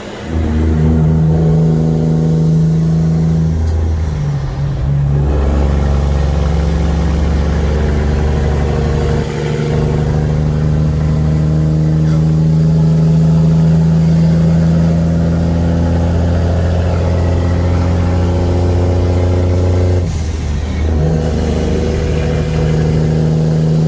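Cummins heavy-truck diesel engine running steadily under power, its note dropping and changing briefly around five seconds in and again near the end, as with gear changes.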